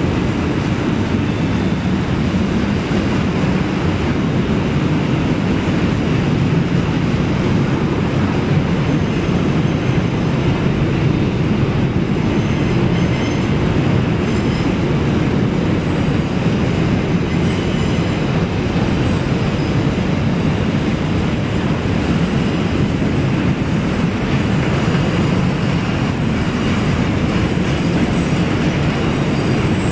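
Double-stack intermodal freight cars rolling steadily across a trestle: a continuous rumble of wheels on rail, with faint high wheel squeal now and then.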